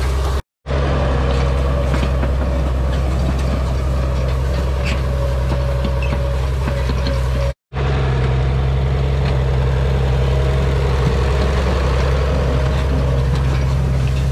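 Farmall 806's six-cylinder diesel engine running steadily as it pulls a side delivery bar rake, with the rake's metal reel and tine bars clattering. The sound drops out twice for a moment, once just after the start and once about halfway.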